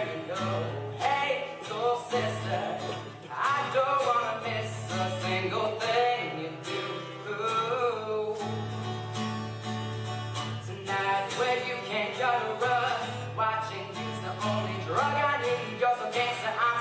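Male voice singing over a strummed acoustic guitar.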